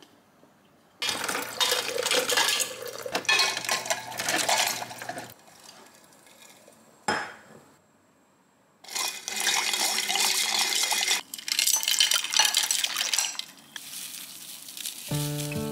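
Ice cubes clinking and rattling against a glass pitcher of water as a spoon stirs green tea powder in, in two long spells, with one sharp clink about seven seconds in.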